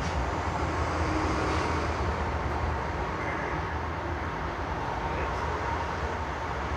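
Steady low rumble with a hiss over it, with no distinct knocks or clicks.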